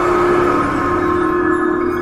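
Instrumental music: a looped theme of steady, sustained held tones.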